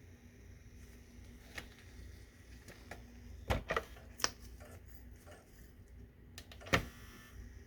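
A few sharp, irregular clicks and knocks from an optical disc drive whose tray won't open. They come in a cluster midway, and the loudest is near the end.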